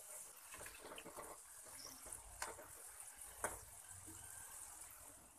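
Faint sizzle of small wheat-flour gulab jamun balls deep-frying in hot oil in a kadai, with two light clicks about two and a half and three and a half seconds in.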